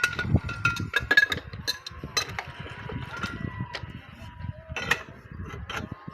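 Metal tools striking steel rail track parts during track repair: irregular clanks and clinks, each with a brief metallic ring, loudest near the start and again about five seconds in.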